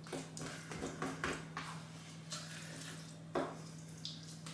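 A fork scraping and tapping in a ready-meal tray as rice is stirred into curry sauce. It makes a string of short, irregular scrapes and clicks, with one louder knock about three and a half seconds in. A steady low hum runs underneath.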